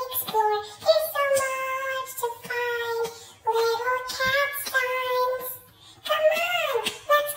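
Cat meows tuned into a sung melody: a run of high held notes one after another, ending in a long, falling meow.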